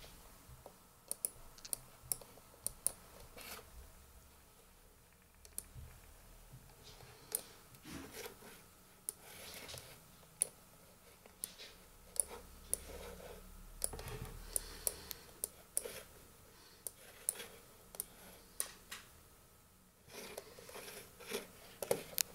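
Samsung Ativ Book 2 laptop being operated: scattered, irregular sharp clicks, several a second at times, with softer rustling between them.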